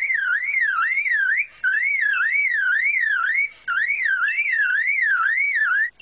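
Superb lyrebird mimicking a car alarm: a whistled tone sweeping up and down about two and a half times a second, in three runs with short breaks between them.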